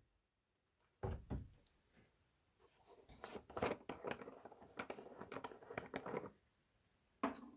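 Red plastic screw cap being twisted off a plastic jug: a run of small clicks and crackles for about three seconds. Two knocks come about a second in and another near the end.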